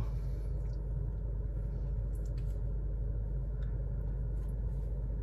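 Steady low rumble of a car driving slowly, engine and road noise heard from inside the cabin.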